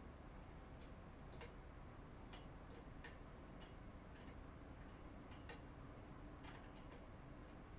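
Near silence: faint room tone with scattered light clicks at uneven intervals, like small parts or hand tools being handled.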